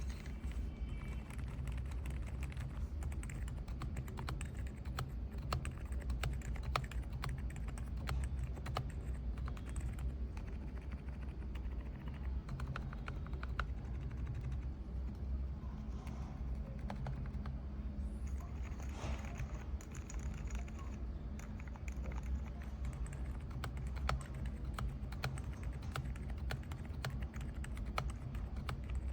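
Typing on a mechanical keyboard: a steady stream of keystroke clicks over a low hum.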